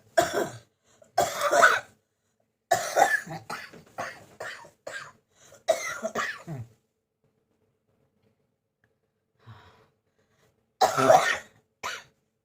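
A person with a bad cold coughing in fits. Two coughs come first, then a run of rapid coughs lasting about four seconds. After a pause, one more coughing burst comes near the end.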